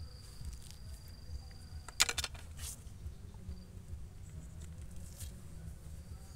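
An insect giving a thin, steady high-pitched call that breaks off about two seconds in. Just then comes a short burst of rapid sharp clicks, the loudest sound here, with a few fainter clicks later.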